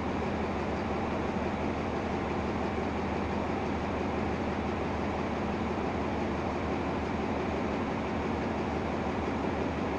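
Diesel locomotive idling steadily at the head of a stationary passenger train, an even, unchanging engine drone.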